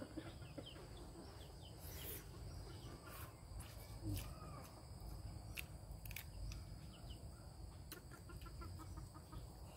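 Quiet outdoor ambience with chickens clucking faintly now and then, and a few light clicks spread through it.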